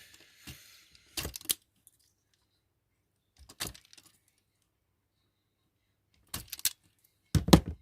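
Brief rustling, then scattered sharp clicks and small knocks from small tools and parts being handled on a workbench while wiring a model locomotive. The clicks come in four small clusters, the loudest near the end.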